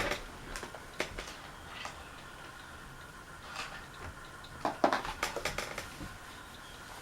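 Scattered light clicks and knocks from handling hard parts, with a busier run of clicks about five seconds in and a faint steady hum underneath.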